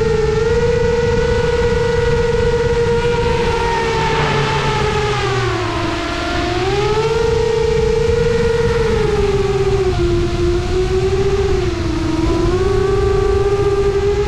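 7-inch FPV quadcopter's brushless motors and propellers whining steadily, heard up close from the frame with a low rush of wind. The pitch dips and climbs back twice as the throttle eases off and comes back on.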